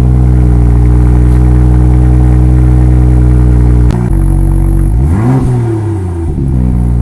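BMW M2's N55 turbocharged inline-six idling steadily, with one quick rev blip that rises and falls about five seconds in.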